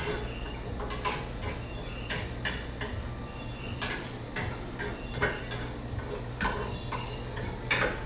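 Irregular light clicks and clinks, like dishes and utensils being handled at an ice cream counter, over a steady low machine hum.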